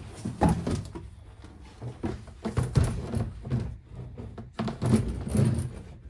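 Pinzgauer 710M's sheet-metal engine cover being lifted off from between the seats, with a series of irregular knocks and rattles as it is handled.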